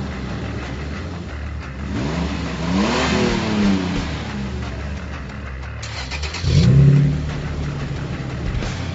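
Toyota Tacoma's 4.0-litre V6 running through its exhaust at idle and revved twice: a quick rise and fall about two to three seconds in, then a sharper rev about six and a half seconds in that drops back to idle.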